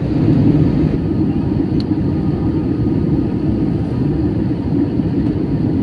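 Steady low rumble of an Airbus A320's cabin on final descent: engine and airflow noise heard from a window seat over the wing.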